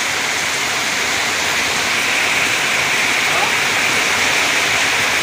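Heavy rain pouring down steadily, with water streaming off a roof edge and splashing onto the flooded ground.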